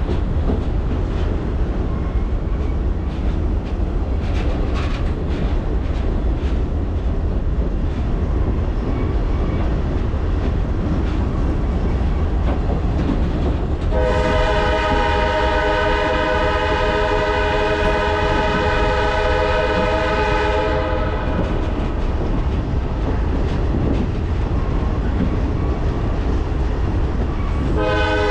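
A passenger train rolls along with a steady rumble and a few clicks from the wheels. Halfway through, the leading diesel locomotive's multi-note air horn sounds one long blast of about seven seconds, and another long blast begins near the end, typical of the horn signal for an approaching grade crossing.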